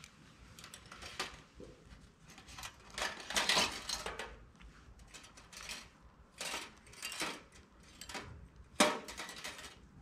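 Steel surgical instruments clinking and rattling against a metal instrument tray: irregular clinks throughout, a busier rattle about three seconds in, and one sharp clack near the end.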